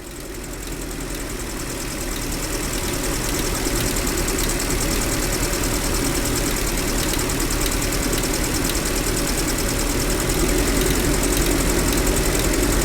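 UMZ-4216 four-cylinder petrol engine idling with a fast, even ticking knock from the valve train, the knock that appeared after the cylinder head was replaced. The mechanic puts it down to a rocker arm whose adjusting-screw hole sits closer to the cam than on the others.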